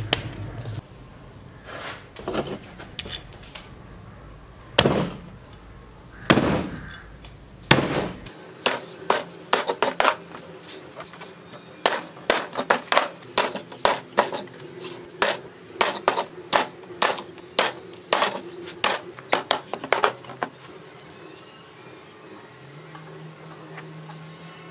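Steel cleaver chopping a whole fish on a wooden chopping block: many quick sharp strikes, about three a second, from about eight seconds in to about twenty seconds, then quieter cutting. A few heavy single knocks come before it.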